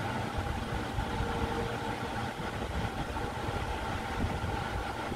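A steady mechanical hum and low rumble from a running motor, with a faint even whine above it.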